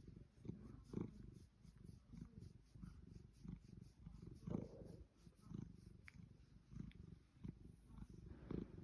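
Savannah cat purring while being stroked, a faint low rumble in repeated pulses.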